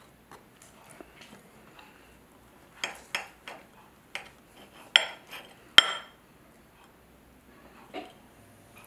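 Steel knife and fork cutting through toast on a stoneware plate: a run of clinks and scrapes of the blades against the plate, the two sharpest about five and six seconds in.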